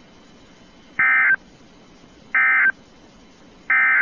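Emergency Alert System end-of-message data tones: three identical short, shrill warbling bursts of digital data, about 1.35 seconds apart, signalling the end of the alert.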